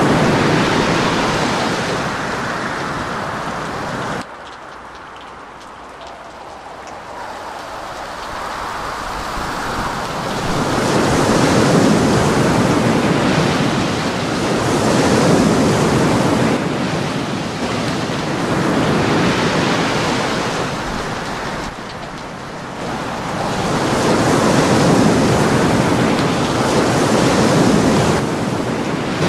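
Hurricane Sandy's gusting wind buffeting the microphone: a loud rushing noise that swells and fades in long gusts. It drops off suddenly about four seconds in, then builds back up.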